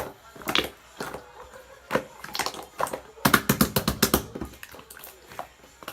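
Slime being squeezed and poked by hand, giving sticky clicks and pops, with a dense run of crackling about three seconds in.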